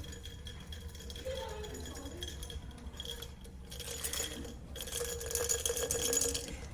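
Small hard objects rattling and clinking close to the microphone, getting louder in the second half.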